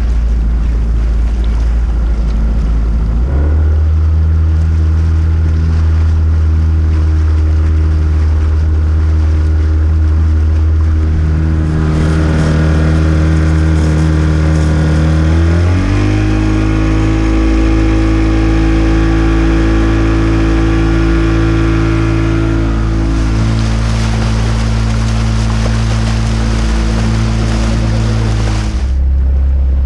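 40 hp Mariner outboard motor running the boat under way, its engine note rising about three seconds in, climbing again about halfway through, and dropping back just before the end. Water rushes and splashes along the hull throughout.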